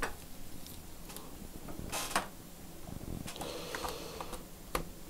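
Scattered clicks and short scrapes of hands handling the laptop and its cables on the bench, with a longer scrape about two seconds in and a sharp click near the end.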